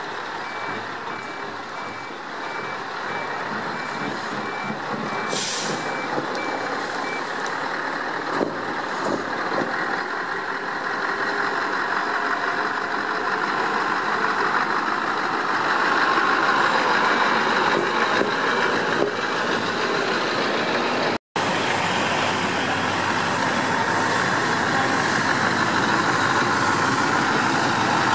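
Scania 5-series V8 trucks driving slowly past at low speed, their engine and running noise growing louder as they come closer. A reversing alarm beeps in an even repeating pattern for the first several seconds.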